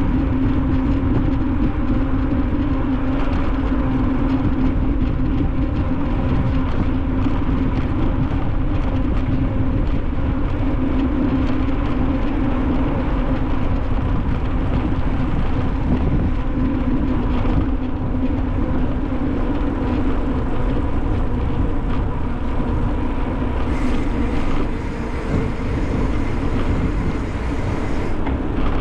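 Wind buffeting the microphone of a camera on a moving bicycle, over a steady droning hum. A brighter hissing sound joins for a few seconds near the end.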